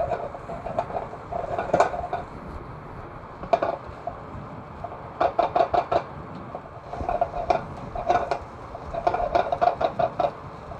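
Fried rice being stirred and worked in a nonstick skillet with a silicone spatula: bursts of quick scraping and knocking from spatula and pan, several strokes a second, with pauses between the bursts.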